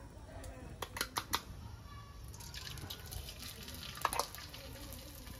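Cooking oil poured from a plastic bottle into a karahi on a gas burner, with a few sharp clicks and then a spread of crackling as the oil heats. A louder cluster of crackles about four seconds in as beaten egg is poured into the hot oil.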